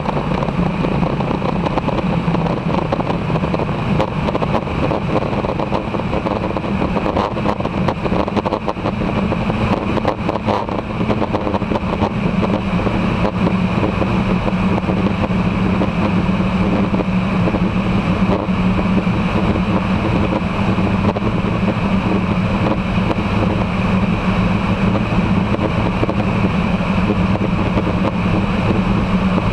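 Foxbat light aircraft's engine and propeller droning steadily in flight, with the rush of the airflow over the outside-mounted camera.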